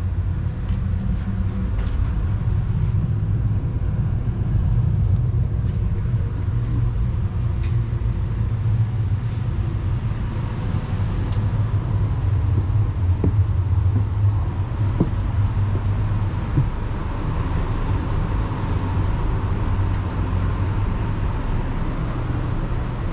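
Steady low rumble of a moving passenger train heard inside a car, with a few faint clicks and rattles over it.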